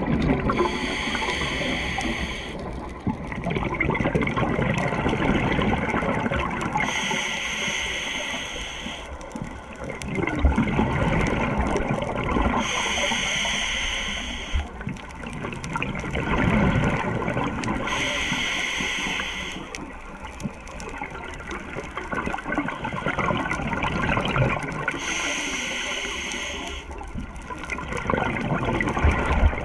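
Scuba diver breathing through a regulator underwater: a hissing inhale of about two seconds, five times at roughly five- to six-second intervals, with the rushing gurgle of exhaled bubbles in between.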